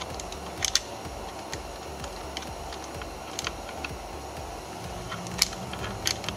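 Scattered light clicks, a dozen or so at uneven intervals, from a 10 mm socket being worked on the airbag retaining bolt behind the steering wheel to loosen it. The loudest click comes near the end.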